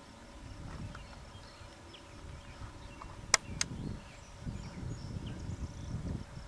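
Faint, irregular low rumbling on the microphone in the open, with two sharp clicks about a third of a second apart a little past the middle.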